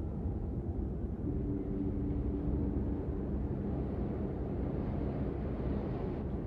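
A steady, low rumbling background sound, with faint held low tones coming in about a second in.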